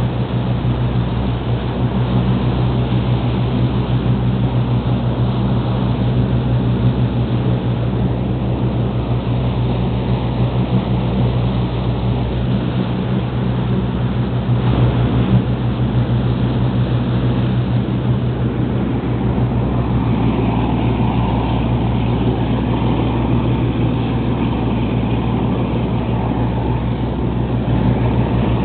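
A lobster boat's engine running steadily under way, a constant low drone, over the rush of water from the boat's wake.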